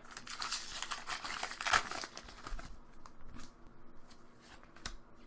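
Foil booster-pack wrapper crinkling and tearing open for about two seconds, followed by light rustles and clicks of trading cards being handled.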